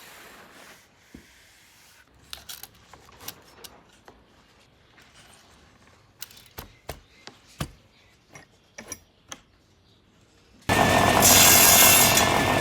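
Scattered light taps and clicks of hand tools working wood, irregular and several seconds long. Near the end a much louder, steady machine-like noise cuts in suddenly.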